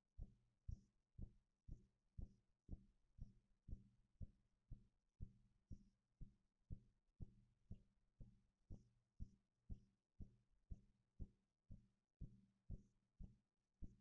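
Faint, even low thumps about twice a second, like a slow drumbeat or heartbeat, over a faint steady low hum.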